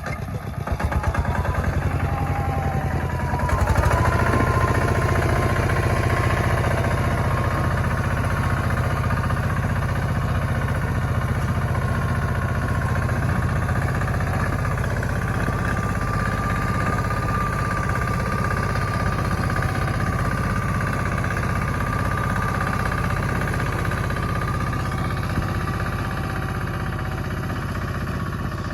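Dugdugi, a locally built single-cylinder diesel farm machine, running: its engine picks up speed over the first few seconds with a rising whine, then runs steadily.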